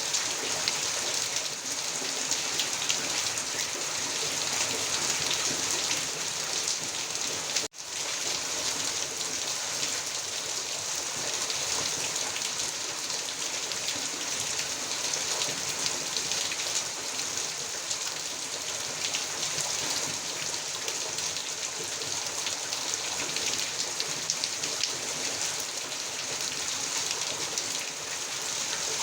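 Heavy rain falling steadily, an even hiss of drops with one split-second gap about eight seconds in.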